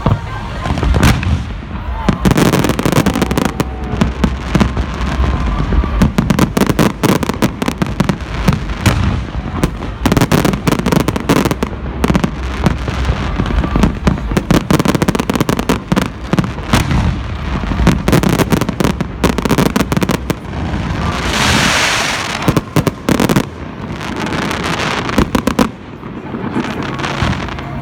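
Fireworks going off in a dense, continuous barrage of bangs and crackling. About three-quarters of the way through there is a stretch of steady hissing crackle.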